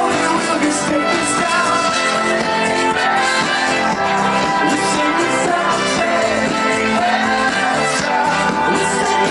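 Live band playing an upbeat synth-pop song through a festival sound system, recorded from within the crowd.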